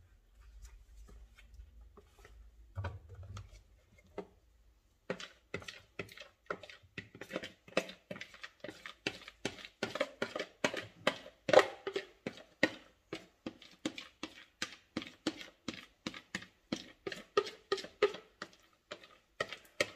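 A metal spoon scraping and knocking thick cake batter out of a plastic mixing bowl into a baking dish. It comes as a quick run of short scrapes and taps, about two or three a second, starting about five seconds in.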